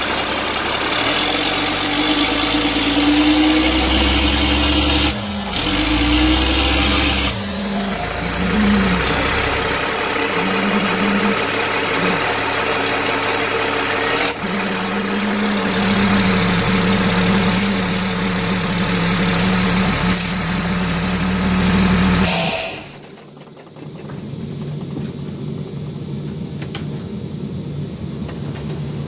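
Caterpillar 3116 turbo diesel of an LMTV military truck running under load as the truck climbs onto a railroad tie, its engine speed rising and falling in the first several seconds, then holding steady. The engine sound cuts off sharply about 23 seconds in.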